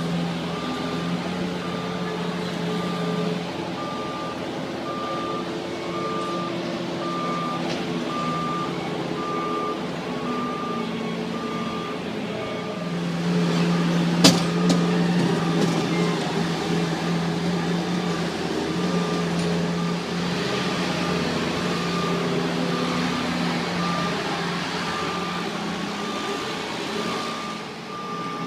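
A heavy construction vehicle's back-up alarm beeping steadily and evenly while its engine runs underneath. One sharp bang sounds about halfway through.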